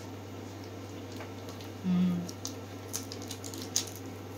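Faint crackles and clicks of a small plastic candy wrapper being handled in the fingers, over a steady low hum. About two seconds in there is one short, low tone.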